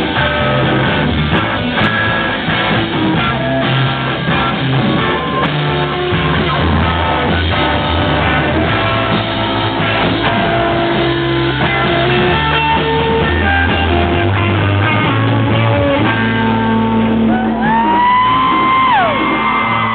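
Live rock band playing, with electric guitar and bass guitar. Near the end, high wailing pitches slide up and back down over the music.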